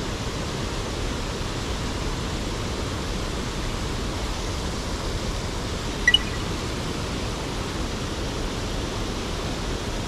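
Small waterfall pouring over a weir into a stream pool, a steady rush of water. A brief high blip sounds about six seconds in.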